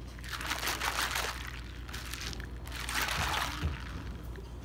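Iced tea and ice sloshing in a sealed plastic cup as it is shaken, in two bouts about two seconds apart, over a steady low hum.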